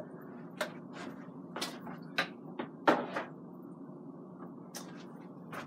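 Several short, light clicks and knocks of kitchen items being handled and set down, irregularly spaced, over a steady low hum.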